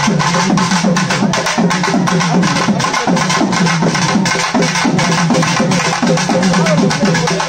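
Loud, fast drumming music: rapid, evenly repeated drum strokes with repeated downward-sliding tones running through the rhythm.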